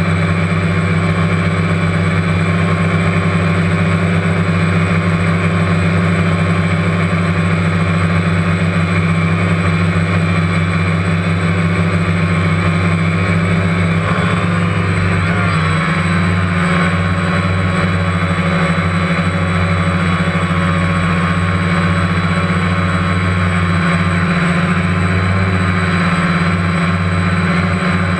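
Multirotor camera drone's motors and propellers buzzing steadily and loudly, as heard by its own onboard microphone; the pitch of the tones shifts about halfway through.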